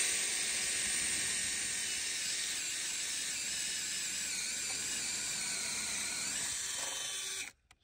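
Power drill turning a paddle bit through a pressure-treated wooden post, a steady high whine with cutting noise, as it bores a hole. It stops abruptly near the end.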